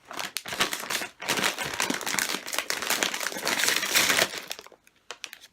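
A Ruffles potato chip bag crinkling and crackling as it is handled and opened, stopping about a second before the end.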